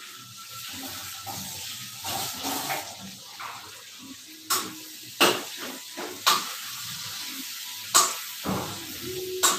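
Washing up at a kitchen counter: water splashing and running, with about five sharp clanks of steel dishes and utensils in the second half.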